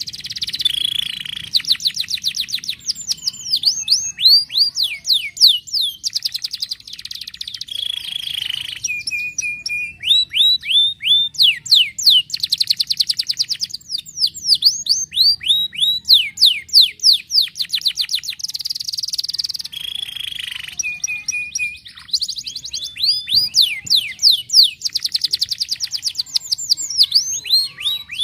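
Domestic canary singing a long, continuous song of fast trills and rapidly repeated downward-sweeping notes, with twice a short, steady, lower note.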